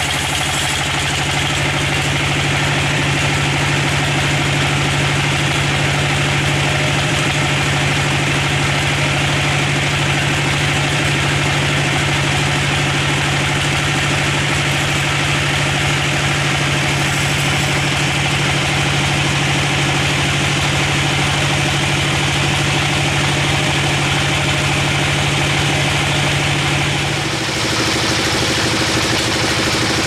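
Bandsaw mill sawing a teak log lengthwise: a steady mechanical drone from the saw's drive with the hiss of the blade cutting through the wood. About 27 seconds in, the drone's low hum drops away and the sound changes.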